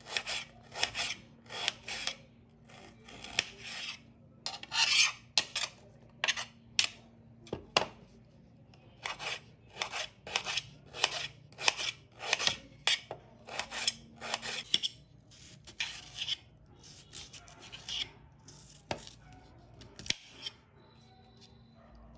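Small kitchen knife slicing through a red onion on a ceramic plate: a crisp crunch with each cut, about two a second, thinning out near the end.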